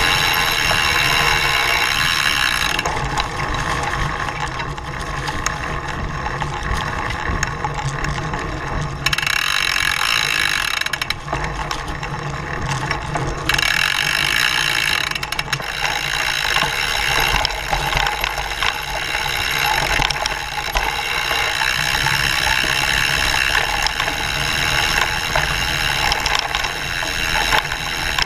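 Mountain bike riding over a leaf-covered dirt trail: continuous chain and drivetrain rattle with a ratcheting clatter over the rumble of knobby tyres on dirt. The higher rattling drops away twice for a few seconds and comes back.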